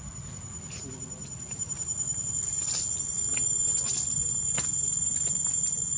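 Insects droning: one steady, high-pitched tone that grows louder about two seconds in, over a low background rumble.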